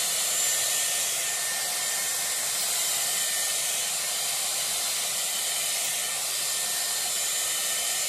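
Dyson Airwrap with its round brush attachment blowing hot air through a section of hair: a steady rush of air with a faint high whine from the motor.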